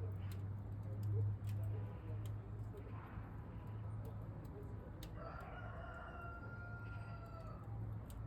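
A rooster crowing once, a single long call starting about five seconds in and holding for over two seconds, over faint scattered clicks and a steady low hum.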